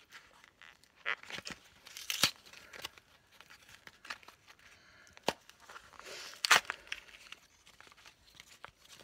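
Product packaging being torn open and handled: a series of irregular rips and crinkles, the loudest about two seconds and six and a half seconds in.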